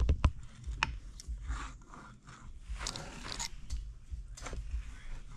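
A few sharp clicks and knocks in the first second, then scraping and rustling: metal parts of a split Yamaha YZ250F crankcase being handled and turned.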